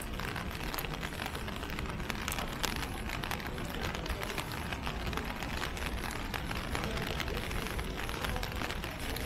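Steady rain falling on wet street pavement, a dense patter of fine drops over a low, even rumble.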